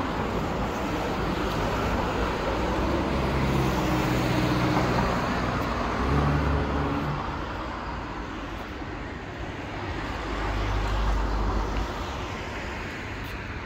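City street traffic: cars driving past with tyre noise, and the low hum of a passing vehicle's engine swelling in the middle and again near the end.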